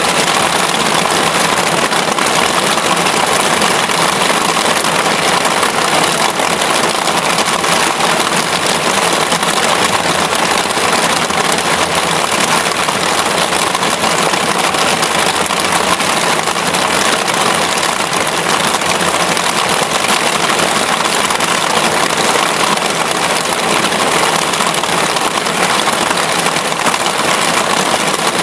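Heavy rain falling steadily on a canvas circus tent and the waterlogged ground around it, an even, unbroken hiss of downpour.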